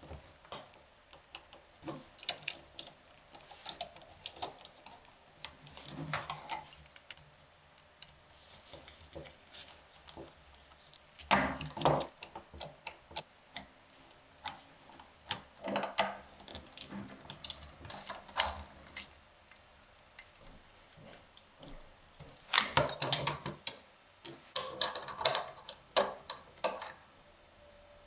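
Small steel parts of a 1930s Remie Scout portable typewriter's carriage clicking and clattering as they are handled and fitted by hand. The clicks come irregularly in short clusters, loudest a little before halfway and again a few seconds before the end.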